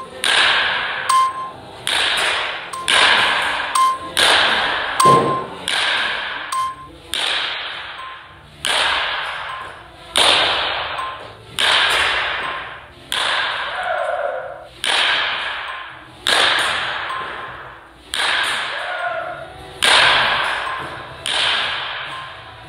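Baseball bat striking balls over and over, a sharp crack every second or so at uneven spacing, each followed by an echo that dies away in the large indoor hall.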